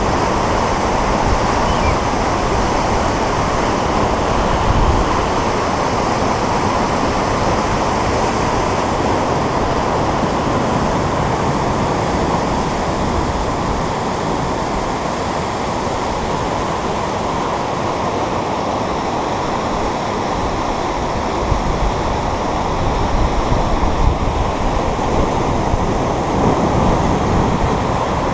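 Whitewater of a mountain river rushing through a rocky rapid, a steady, dense rush of water.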